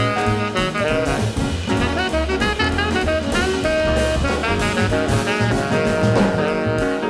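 Instrumental background music with a steady drum beat and sustained melodic lines.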